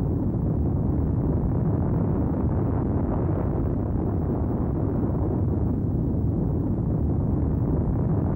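Steady deep rumbling noise that holds an even level, with no separate knocks or tones.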